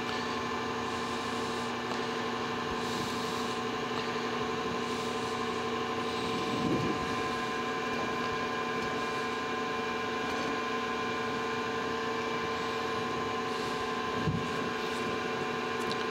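Steady electric motor hum, several fixed pitches at once, from the running machine-shop equipment, with a couple of faint knocks as the bronze-shod crosshead is threaded by hand onto a stub in the lathe chuck.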